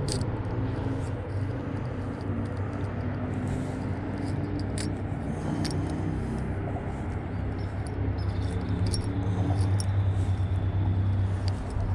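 Steady low engine hum that grows louder over the last few seconds, with scattered light clicks.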